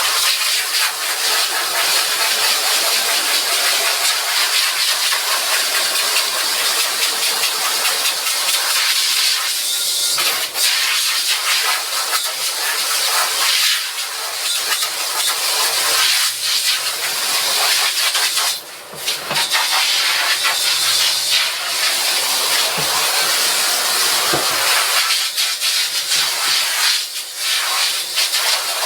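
Portable tank-fed spray washer's water jet hissing steadily as it washes out a screen-printing screen, breaking off briefly once about two-thirds through.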